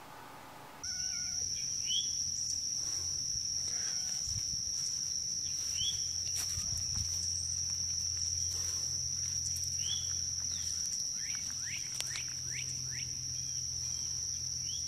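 Outdoor insect chorus, a steady high-pitched trill of crickets or similar insects, begins about a second in. Short chirps come and go over it.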